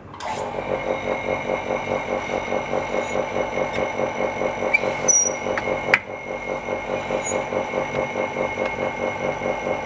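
Small vacuum pump of a screen-laminating alignment machine switched on and running steadily with a fast even pulsing and a steady whine, holding the part by suction; a couple of sharp clicks about five and six seconds in.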